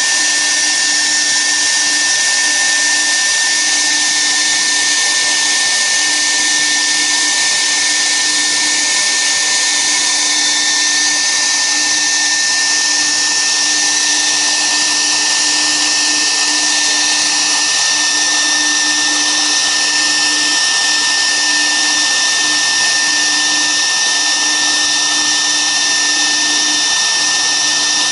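Air-cooled spindle of a 1325 CNC router engraving, giving a loud, steady high-pitched whine over a fan-like hiss. Underneath, a lower hum breaks off and resumes every second or two.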